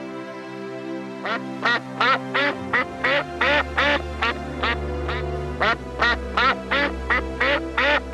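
Domestic duck quacking in a rapid run of short quacks, about three a second, starting about a second in, over steady background music.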